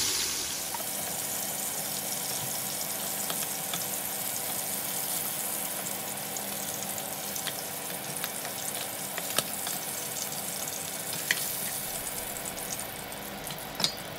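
Salmon pieces shallow-frying in hot mustard oil, a steady sizzle. A few light clicks in the second half as a wooden spatula turns the pieces and lifts them out of the pan.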